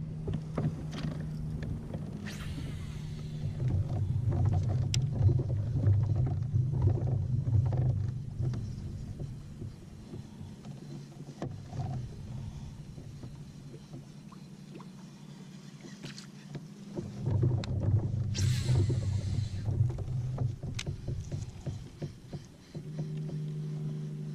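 Baitcasting reel being cast twice: each time the spool gives a short, fast whir as the line pays out, about two seconds in and again around eighteen seconds, and a few seconds of louder low rumbling follow. A steady low hum lies underneath throughout.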